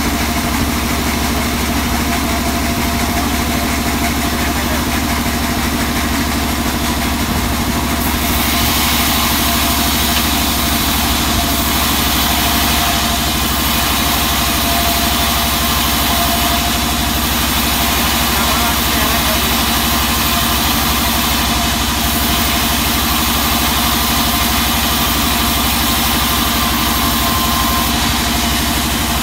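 Vertical band saw running steadily with the low hum of its drive; about eight seconds in the blade starts cutting through a thick teak plank, adding a loud, hissing rasp that holds, with short breaks, until near the end.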